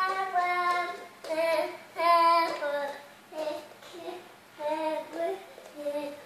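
A toddler singing to herself in a high voice, a string of short phrases with held notes that slide up and down.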